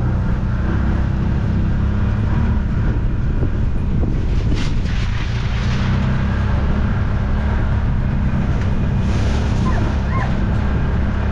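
Side-by-side utility vehicle's engine running steadily as it drives through dense scrub. Brush swishes against the vehicle briefly about four and a half seconds in and again about nine seconds in.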